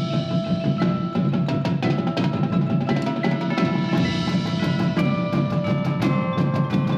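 Percussion ensemble playing: rapid mallet strikes with ringing pitched notes forming a changing melody, over drums underneath.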